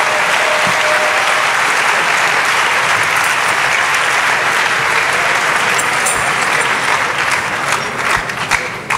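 A large congregation applauding: dense, steady clapping that thins out to scattered separate claps near the end.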